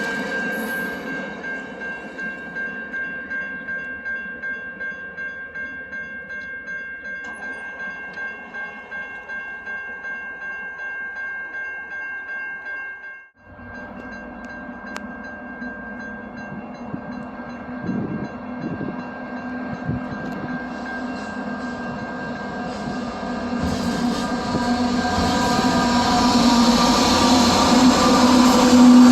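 A passing train: a rhythmic clatter of wheels over rail joints under a steady high squeal, slowly fading. A sudden break comes about thirteen seconds in. After it, a train approaches and grows steadily louder toward the end.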